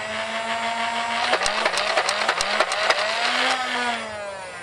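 Nerf Elite Rapidstrike CS-18 on its stock four C batteries: the flywheel motors whine at full speed, a rapid burst of about nine darts is fired at roughly five a second, then the motors wind down near the end.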